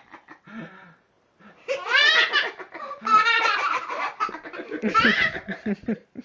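Laughter from a toddler and an adult: high-pitched giggles and squeals mixed with deeper laughing, in several bursts. There is a short pause about a second in.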